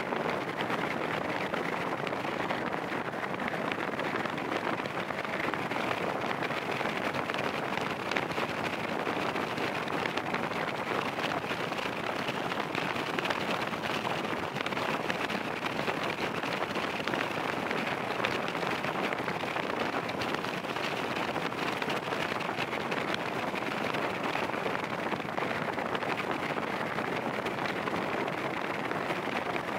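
Steady rushing wind and road noise from a vehicle driving along a road, even throughout, with no engine note or other event standing out.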